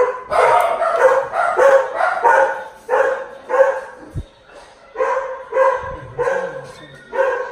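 An animal barking over and over: about a dozen short, pitched barks at an even pace, roughly one and a half a second.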